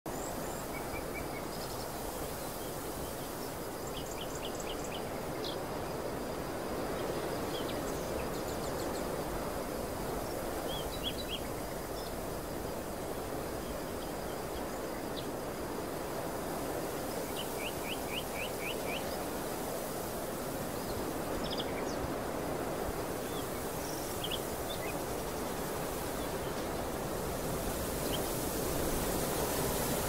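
Steady outdoor ambience with a low, rushing noise, and small birds calling now and then in quick trills of short high notes.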